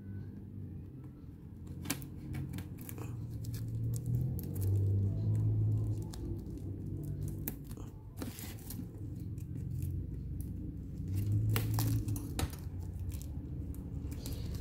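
Clear plastic shrink wrap on a cardboard box crinkling and tearing as it is picked at and peeled off by hand, with scattered sharp crackles.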